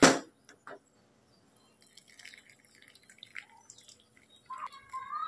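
A sharp knock at the start, then water dripping and trickling off freshly boiled Maggi noodles as they are lifted out of the pot on a wire-mesh skimmer.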